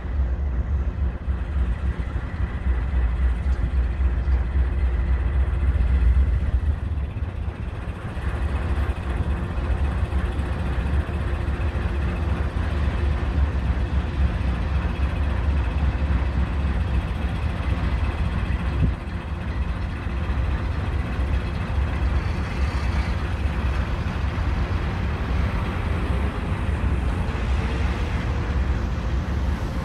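GE C40-9W diesel-electric locomotive running with a steady low rumble, creeping slowly up and then standing with its 16-cylinder diesel engine idling.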